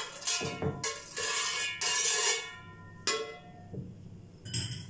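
Metal spoon scraping around the inside of an aluminium baking tray while spreading ghee, in several strokes, with a sharp knock about three seconds in.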